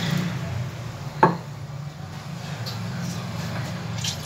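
Thick ground paste poured from a jar into a glass bowl of water, with one sharp clink of kitchenware a little over a second in, over a steady low hum.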